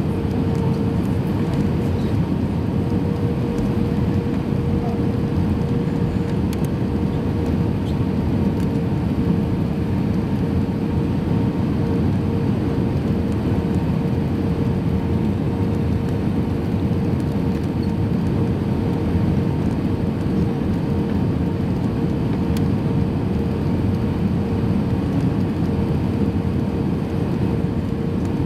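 Airbus A320-200 cabin noise on approach, heard from inside the cabin: the steady rumble of the engines and airflow, with a steady humming tone running through it.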